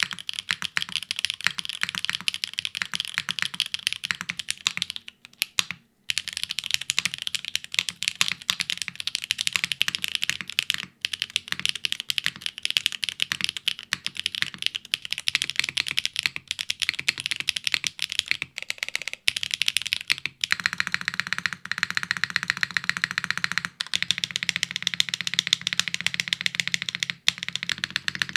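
Fast, continuous typing on a PLYWRKS Spyder TKL mechanical keyboard with tactile switches, GMK keycaps, a polypropylene plate, a PCB-snap mount and no foam. The typing breaks briefly about five seconds in, and from about twenty seconds in the key strokes sound fuller and brighter.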